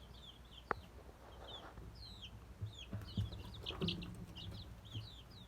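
Baby chicks peeping: many short, high chirps that rise and fall, overlapping continuously. A single sharp click comes about a second in, and a few soft low knocks follow midway.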